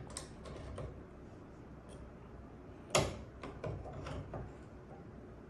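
Katana lock decoder being slid into a car lock cylinder: small metallic clicks and scrapes, with one sharper click about three seconds in followed by a few lighter clicks.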